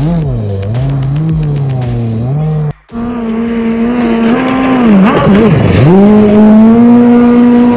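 Kommander GP1 stand-up jet ski engine running under way, its pitch rising and falling with the throttle. It cuts out briefly about three seconds in, then holds a higher, steady note, with one drop and recovery around five to six seconds.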